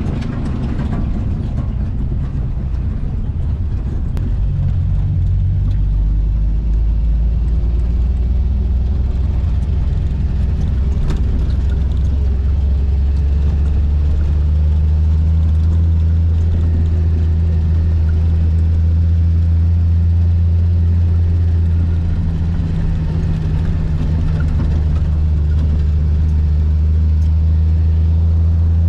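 A car engine drones steadily, heard from inside the moving vehicle on a dirt road. The low hum grows louder about five seconds in and again around fourteen seconds in, as the engine works harder.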